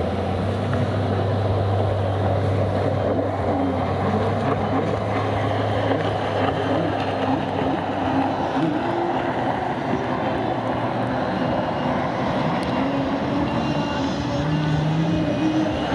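Racing jet skis running hard at high revs, the engine pitch wavering up and down as they lean through turns, over a steady rushing hiss.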